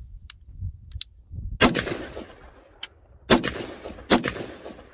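AR-15-style rifle firing three single shots, the first about a second and a half in and the last two close together, each followed by a short echo. A couple of faint clicks come before the first shot.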